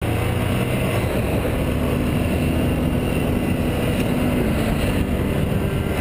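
Motorcycle engine running at road speed, heard from a camera mounted on the moving bike, under steady wind and road noise.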